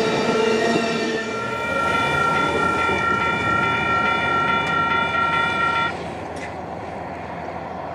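Amtrak Coast Starlight passenger train running on the rails, with a steady high tone sounding over it that stops suddenly about six seconds in, after which only the quieter train noise is left.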